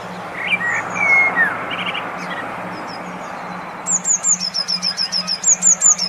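Songbird song: a few scattered chirps and a short trill, then, about two-thirds in, a fast run of high, falling whistled notes, several a second. Under it runs a steady hiss with a low pulsing hum.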